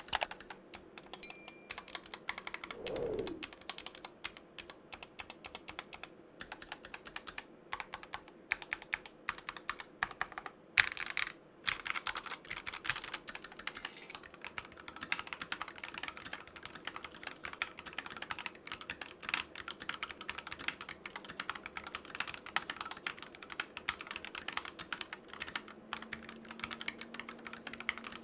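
Continuous fast typing on a custom mechanical keyboard with Tangerine linear switches and PBT keycaps: a dense run of keystroke clacks, with a louder flurry near the middle.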